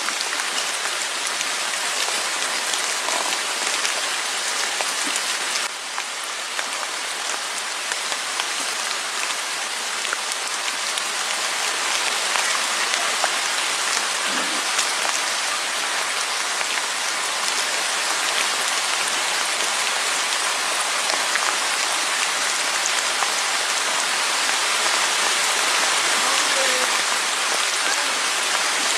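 Steady rain falling on a surface, an even hiss with no pitch, dipping slightly about six seconds in and then slowly growing louder.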